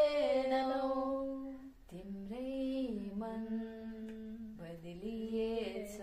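A woman singing a Nepali song unaccompanied, in long held notes that slide between pitches, with short breaks for breath about two seconds in and again near the end.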